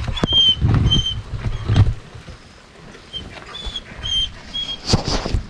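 Thunder rumbling low for the first two seconds, over short high chirps that repeat about every half second. A sharp click comes about five seconds in.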